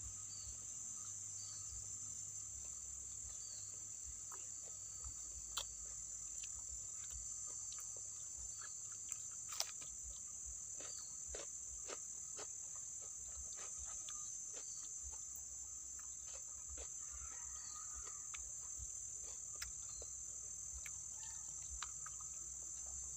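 Steady high-pitched buzzing drone of insects, with scattered small clicks over it.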